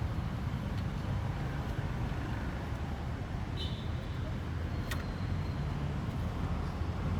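Steady low rumble of road traffic, with one sharp click about five seconds in.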